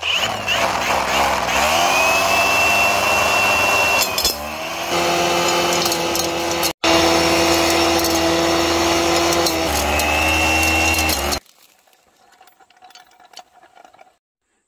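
Milwaukee M18 cordless angle grinder spinning a chain-flail rock crusher at high speed, a steady whine over a dense clatter as the chains smash gold ore to dust. The motor's pitch sags under load a second or two in and then picks up again. The run stops abruptly about eleven seconds in.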